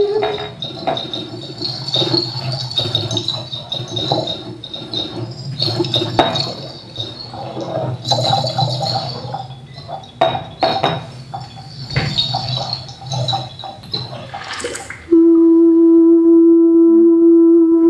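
Water poured from a plastic beaker into a tall glass cylinder, picked up by a microphone and played through the sound system, with irregular splashing and clinks of glass. About fifteen seconds in, a loud steady electronic drone on one pitch cuts in suddenly and holds.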